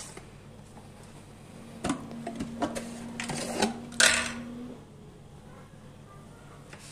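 Chopped cabbage and carrots rustling and crunching as they are handled in a plastic basin: scattered crisp crackles in the middle, ending in a sharper knock about four seconds in. A faint steady hum runs underneath for a couple of seconds.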